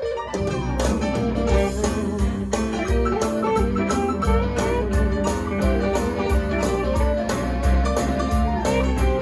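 Blues-rock band playing an up-tempo instrumental passage with guitar, bass and a steady drum beat, kicking in about half a second in after a falling guitar line.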